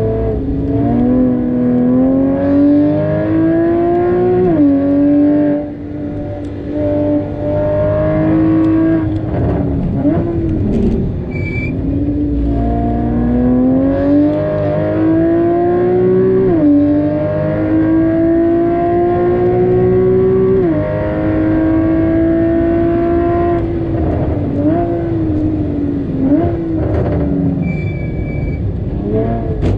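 Porsche Cayman GTS (981) flat-six engine pulling hard through the gears on a race track. The pitch climbs steadily and drops sharply at each upshift, and it blips and falls away through downshifts under braking between the pulls.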